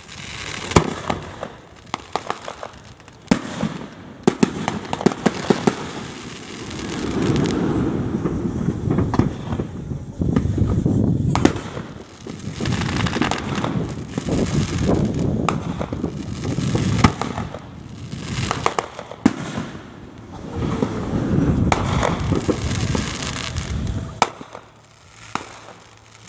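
Aerial fireworks shells bursting over a lake: many sharp cracks and pops, with stretches of low rumble that rise and fade several times.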